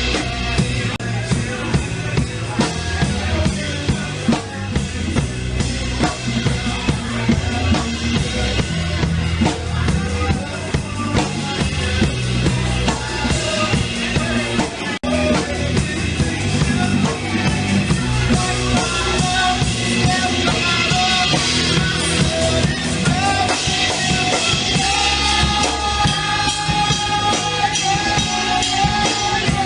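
A band playing a song, the drum kit keeping a steady beat with bass drum and snare. The sound cuts out for an instant about halfway through.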